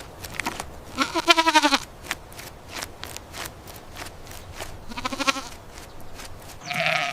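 Bleating goat or sheep: two quavering bleats a few seconds apart, with a third call starting near the end and faint clicks in between.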